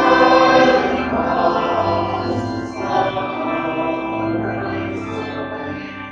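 Closing hymn music with long held notes, loudest at first and growing gradually softer.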